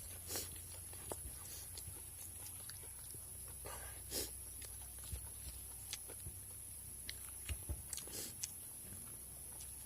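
A person chewing and eating a mouthful of rice and curry close to the microphone, with irregular wet smacks and clicks.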